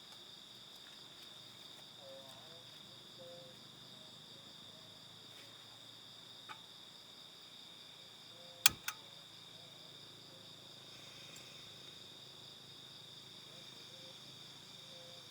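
Steady high-pitched chirring of crickets and other insects in a forest. About two-thirds of the way through come two sharp clicks close together, the loudest sound, with a fainter click a couple of seconds before.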